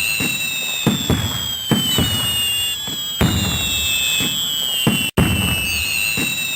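Fireworks: long, slowly falling whistles of rockets over a rumble of bangs and crackling bursts. The sound cuts out briefly about five seconds in, then starts again.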